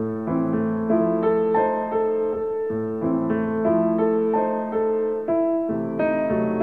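Instrumental piano music: a melody of separate held notes over lower sustained notes.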